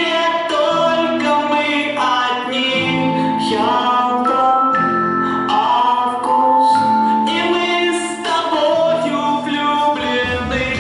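A song: a voice singing held, sustained notes over instrumental backing music. Deeper low accompaniment enters right at the end.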